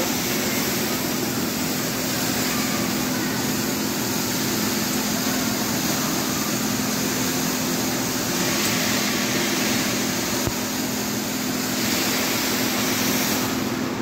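Steady rushing noise of an indoor water fountain, a tall column of water falling several floors through a shopping-mall atrium, with a steady low hum underneath.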